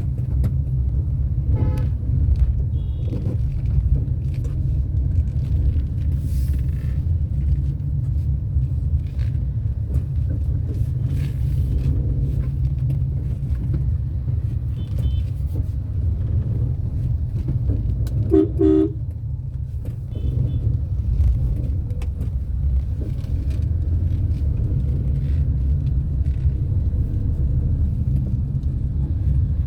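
Steady low rumble of a car driving, heard from inside the cabin. Car horns honk briefly now and then in the traffic; the loudest is a short blast a little past halfway.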